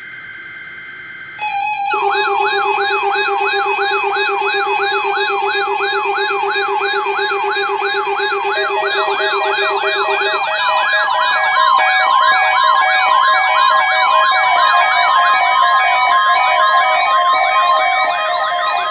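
NOAA Weather Radio weekly test alert signal: a short burst of paired data tones, then from about a second and a half in, weather-alert receiver alarms sounding together. Rapidly warbling siren-like tones run over steady beeps, and a low buzzing tone stops about halfway through.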